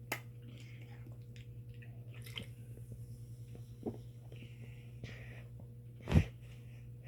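Faint mouth sounds of someone sipping and swallowing ginger ale, with one louder short sound about six seconds in, over a steady low hum.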